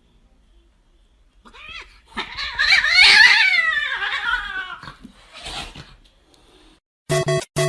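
A pet animal's drawn-out cry, wavering and mostly falling in pitch, lasting about three seconds and followed by a shorter call. Choppy music starts near the end.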